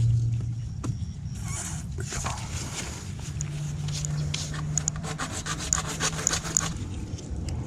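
Rubbing and scraping from PVC pipe and fittings being worked by hand, with a quick run of light clicks and scrapes through the second half and a low hum in the middle.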